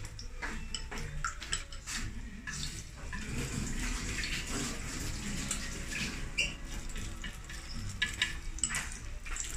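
Beaten egg sizzling in a rectangular tamagoyaki pan, with wooden chopsticks tapping and scraping against the pan and the egg bowl several times.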